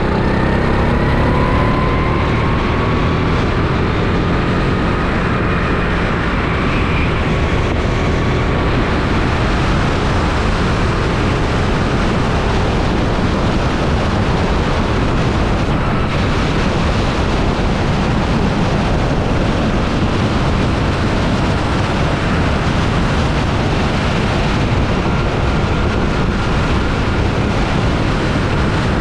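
Rental kart engine running at speed, heard from onboard under heavy wind and road noise on the camera microphone. Its faint engine note climbs through the first several seconds as the kart accelerates.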